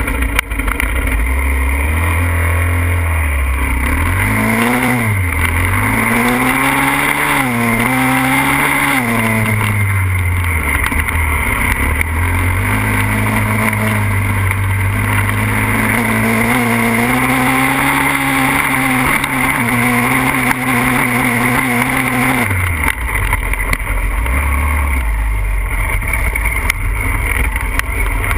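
Pitster Pro 140cc pit bike's single-cylinder four-stroke engine idling, then blipped up and down several times about four to nine seconds in. It is then held at steady higher revs under load while climbing a grassy hill, and drops back to idle about 22 seconds in.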